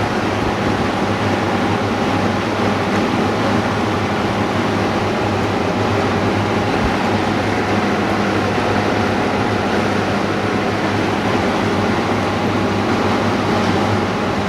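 Steady whirring hum of running machinery or a ventilation fan, unchanging throughout, with a low hum and a faint higher steady tone in it.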